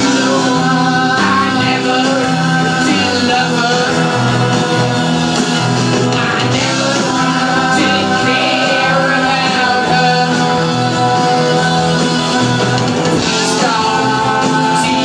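Rock band playing live on electric guitars and bass guitar, loud and continuous.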